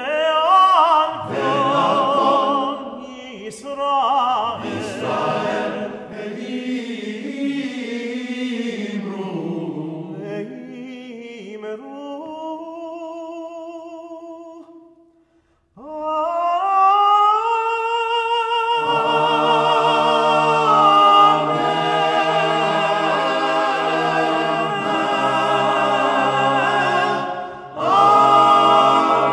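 Cantor and men's choir singing Hebrew liturgy unaccompanied. At first a voice with wide vibrato leads and thins to a single held line, then stops briefly. The choir comes back in sliding up into sustained full chords.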